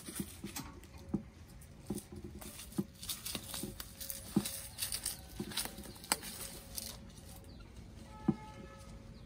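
Wheelbarrow pushed over dry leaves and grass, with footsteps, crunching of leaves and irregular soft knocks from the barrow.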